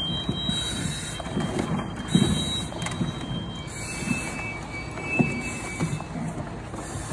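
Firefighter breathing hard through an SCBA mask, the demand regulator hissing with each breath about every second and a half, while the air bottle and gear knock and scrape against the wooden crawl prop.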